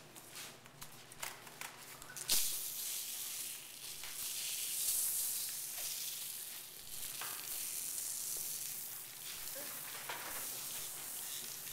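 Paper bags rustling and crinkling as many people handle them. A dense, crackly hiss starts suddenly about two seconds in and goes on.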